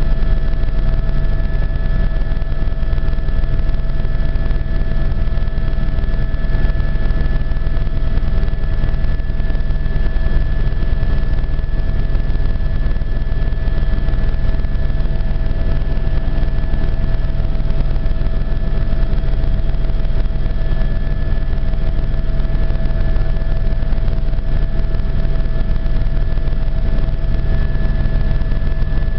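Helicopter engine and rotors heard from inside the cabin in steady flight: a continuous deep rumble with a steady high whine over it.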